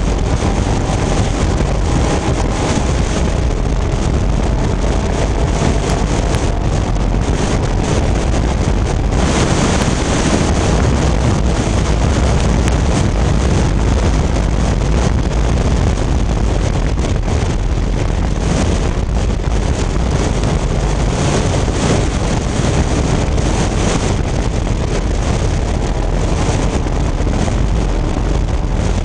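Vintage Fiat race car's engine running hard at racing speed, heard from inside the car, largely buried under loud, steady wind buffeting on the microphone.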